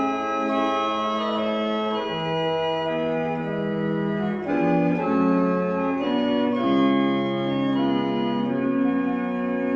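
Organ playing slow, held chords, the notes changing every second or so.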